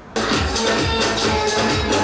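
Electronic dance music with a steady bass beat, cutting in abruptly a moment in.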